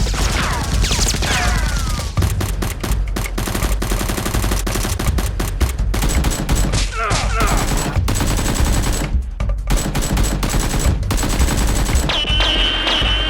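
Rapid bursts of automatic gunfire, many shots in quick succession like a firefight, with a few falling whistle-like sweeps.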